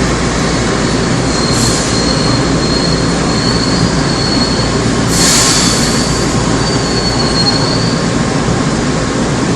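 Running noise inside a Seoul Metro Line 2 old 2000-series resistor-controlled electric train: a steady rumble of wheels and motors, with a thin, high wheel squeal wavering through most of it. Two short hisses come through, one near the start and a louder one about midway.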